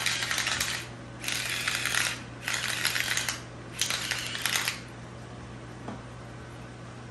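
Seasoning mill grinding salt or pepper onto raw haddock fillets, in four short bursts of gritty crackling.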